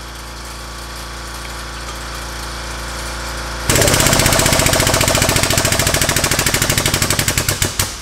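A 12-ton pneumatic/hydraulic bottle jack's air pump starts suddenly about three and a half seconds in, after a steady hum. It runs as a loud, rapid chattering pulse, driving the ram of a pipe crimper to crush the end of a 3/4-inch EMT pipe flat, and it stops just before the end.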